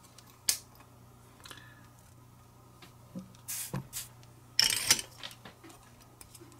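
Flush cutters snip an LED lead on a circuit board with one sharp click about half a second in. Scattered clicks and a brief scraping rustle follow from the tools and board being handled, loudest shortly before the end.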